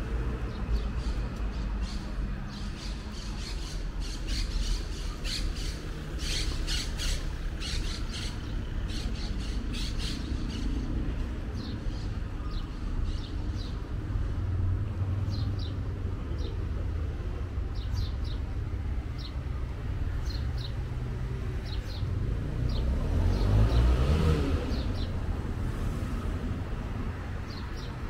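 Birds chirping in short, repeated calls over a steady low rumble of street traffic; a vehicle passes close by a little before the end, the loudest moment.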